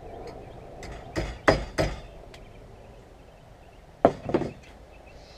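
Blacksmithing tools knocking on metal at the forge bench: three sharp clanks a little past a second in, then two more about four seconds in.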